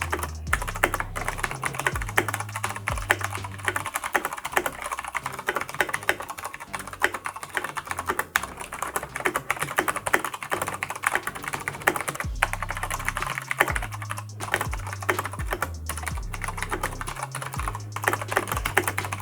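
Fast typing on a mechanical keyboard with tactile Cherry MX Clear switches and PBT double-shot keycaps: a dense, continuous clatter of keystrokes without switch clicks. Background music with a bass line plays underneath, dropping out in the middle.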